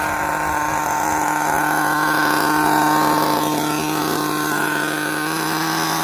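Small nitro RC car engine running at a steady speed, a high buzzing whine with its pitch held constant and getting a little louder in the middle.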